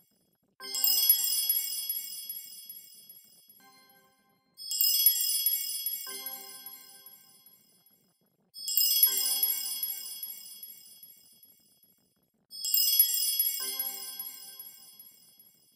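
A looped wind-chime sound: a cluster of high chime notes comes in sharply four times, about every four seconds, and each time fades away over about three seconds, with a few lower bell-like notes underneath.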